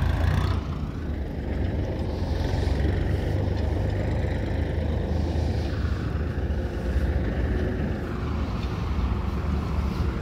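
Vehicle engine running with a steady low rumble.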